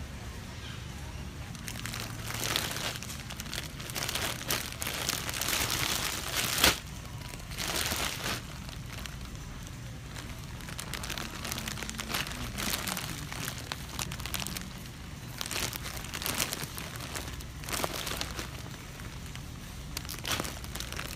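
Large clear plastic bag of individually wrapped candies (Kirkland Signature Funhouse Treats, 92 oz) crinkling as it is handled, in repeated bursts of rustling.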